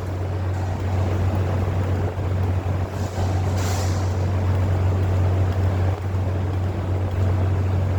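A machine running with a steady low hum and a rough noise over it, and a brief hiss about three and a half seconds in.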